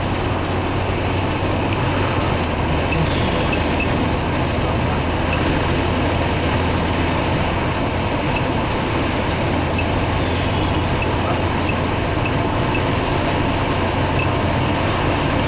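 Steady road and engine noise of a car driving on an expressway, heard from inside the cabin, with a low drone underneath.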